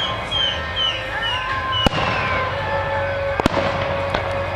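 Aerial fireworks shells bursting, with two sharp booms about two and three and a half seconds in, amid sliding high whistles and a low rumble.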